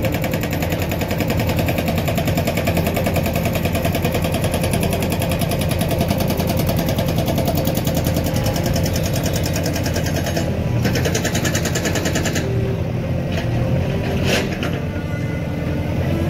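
Diesel engine of a JCB 3DX backhoe loader running hard while it digs, a fast rattle over a steady low drone. The high rattle drops away about twelve seconds in, leaving the lower engine drone with a few sharp knocks near the end.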